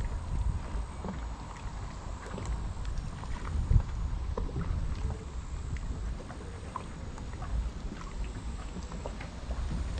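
Gusty wind rumble on the microphone aboard a moored small boat, with light scattered ticks and water lapping at the hull, and one louder knock about four seconds in.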